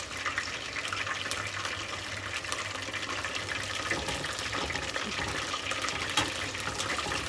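Chicken strips frying in hot oil in a deep fryer: a steady bubbling sizzle with many small crackles and pops.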